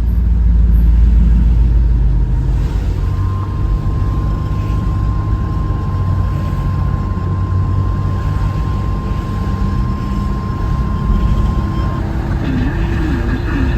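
Steady low rumble of a car's road and engine noise. About three seconds in, a faint steady Emergency Alert System attention tone starts; it holds for about nine seconds and then stops.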